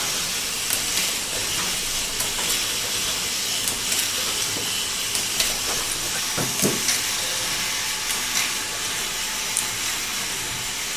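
Syrup bottle filling and capping machine running: a steady high hiss with scattered light clicks from the mechanism.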